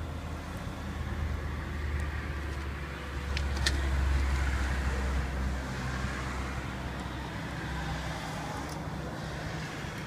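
A nearby car's engine rumbling, growing louder to a peak around the middle and then fading. A single sharp click sounds about a third of the way in.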